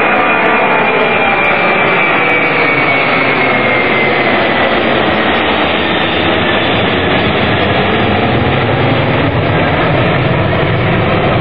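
Boeing 747-300 jetliner climbing out overhead on departure, its four jet engines giving a loud, steady roar. A high whine falls slowly in pitch over the first few seconds as it passes, and a deeper rumble builds toward the end.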